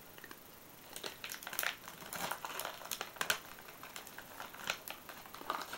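Irregular crinkling and crackling made of many small clicks, starting about a second in and running until just before the end.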